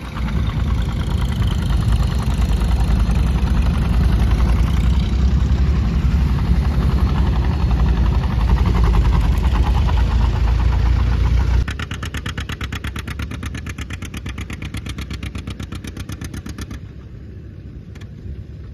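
An engine running, loud and low for about the first twelve seconds. Then it drops suddenly to a quieter, even, rapid chugging that fades near the end.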